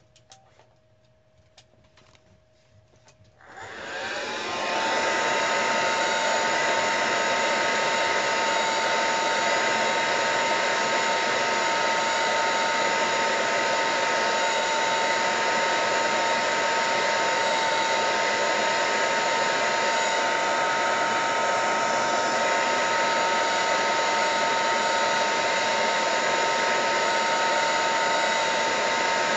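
A handheld dryer blowing hot air over freshly coloured artwork to dry it. After a few faint clicks, it switches on about three and a half seconds in. Its motor spins up over about a second, then runs as a steady whine over rushing air.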